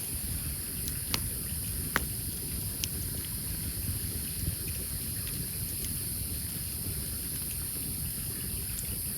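Wood campfire crackling, with a few sharp pops, the loudest about two seconds in, over a steady low rumble.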